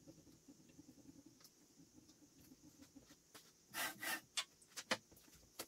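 Light handling noises on the aluminium Z-axis assembly: a hand scuffing against the plates and servo motor twice, about four seconds in, followed by a few sharp clicks.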